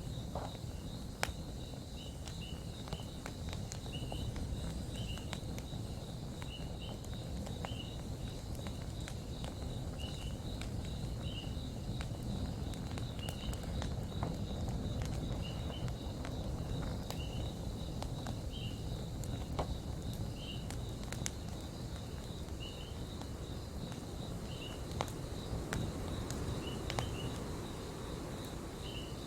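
Campfire crackling, with scattered sharp pops over a steady low rumble, while crickets chirp: a continuous pulsing high trill and short chirps repeating about once a second.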